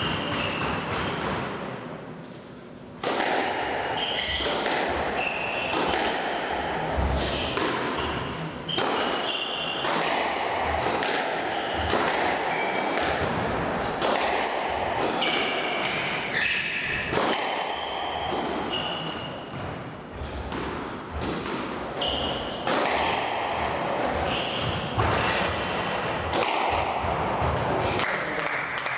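Squash rallies: the ball smacking off rackets and the court walls in quick irregular knocks, with short high squeaks of players' shoes on the wooden court floor. Quieter for the first few seconds, then steady play.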